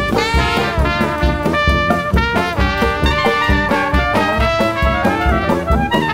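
Brass-led swing jazz over a steady beat, used as background music.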